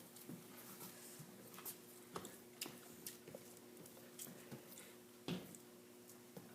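Faint wet clicks and squishes of people chewing and sucking on oranges, scattered and irregular, the loudest about five seconds in, over a steady low hum.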